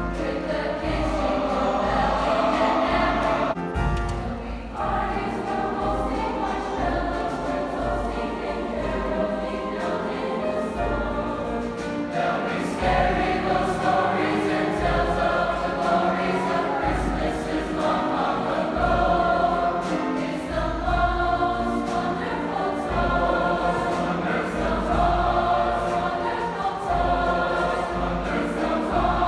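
Large choir singing, one continuous passage of sustained chords.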